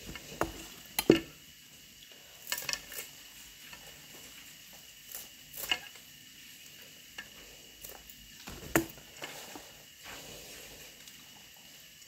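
Kitchen dishes and utensils being handled: scattered clinks and knocks, the loudest about a second in, over a faint steady hiss.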